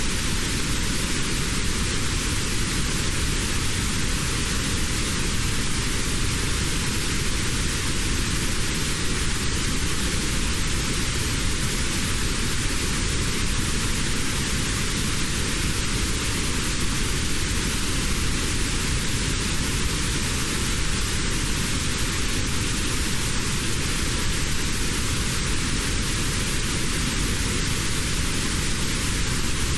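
Steady, even hiss of synthetic noise for tinnitus relief, with one narrow band in the middle of its pitch range cut out: notched noise.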